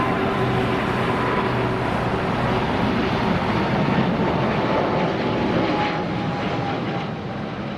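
Jet airliner engines at takeoff thrust: a steady loud rush with a faint whine that drifts slowly lower in pitch. The sound tapers off near the end.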